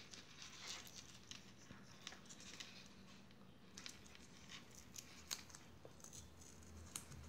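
Faint rustling and light clicks from fingers handling a small circuit board and pressing a piece of foam against its header pins.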